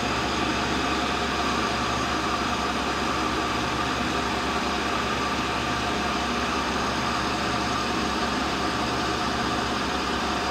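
Tool and cutter grinder running steadily, its spindle motor and wheel giving an even hum and whir.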